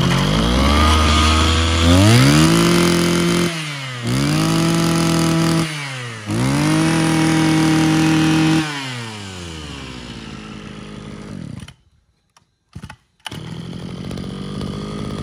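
Mitsubishi TL261 brushcutter's small two-stroke engine idling, then revved to full throttle three times, each rev held a second or two before dropping back to idle. The sound breaks off briefly about twelve seconds in, then the engine is heard idling again.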